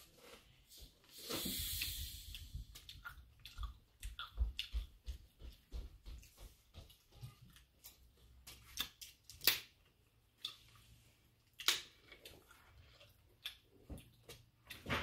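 Close-up eating sounds: wet chewing and lip smacks, with scattered small clicks and taps as roast chicken is pulled apart by hand. A brief hiss comes about a second and a half in.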